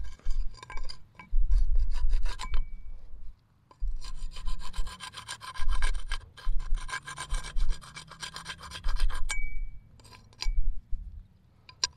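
Dirt being rubbed and scraped off a corroded old iron hinge: rough, scratchy rasping in bursts with short pauses.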